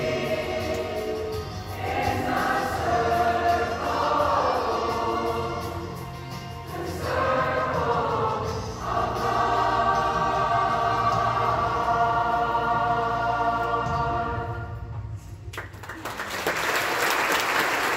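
Youth choir singing in unison and harmony over a low sustained accompaniment, ending on a held chord that stops about fifteen seconds in. Audience applause follows near the end.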